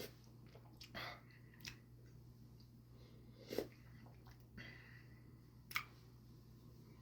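Faint mouth sounds of a person sipping and tasting canned espresso: a few short smacks and gulps, spread out over several seconds.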